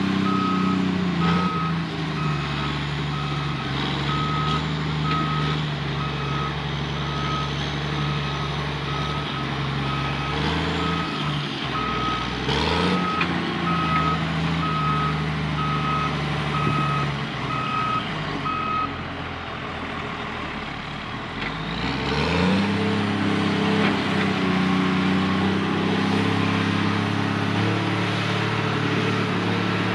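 Heavy diesel earthmoving machine running while its reversing alarm beeps about once a second. The beeping stops about two-thirds of the way through. The engine eases off briefly, then its pitch rises as it picks up again.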